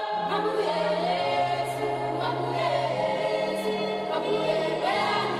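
Music with a choir singing long held chords over low sustained notes.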